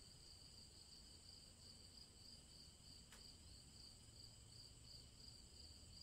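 Faint chorus of crickets chirping, a steady high trill with a light pulsing.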